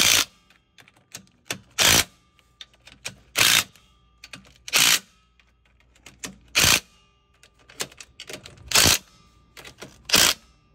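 DeWalt cordless impact driver on a low setting, hammering in seven short bursts a second or two apart as it snugs the rear differential pan bolts of an EZGO TXT golf cart into the aluminium housing in sequence. Light clicks of the socket and bolt heads come between the bursts.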